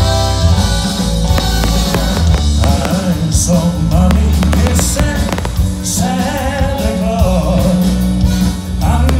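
A song with a singer's voice over a steady drum beat and strong bass.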